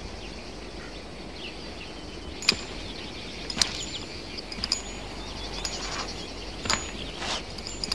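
Outdoor film-soundtrack ambience: a steady hush with faint chirps, broken by about five sharp, metallic-sounding clicks with a brief high ring, spaced about a second apart.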